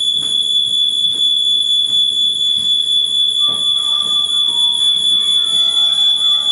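Smoke alarm sounding one continuous, loud, high-pitched tone; it is the sign that it has been set off, and with nothing burning it is a false alarm.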